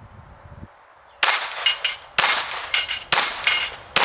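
Glock 44 firing .22 LR rounds at steel plates, about one shot a second starting a second in, three shots plus a fourth right at the end, each shot with the ring of steel hit by the bullet.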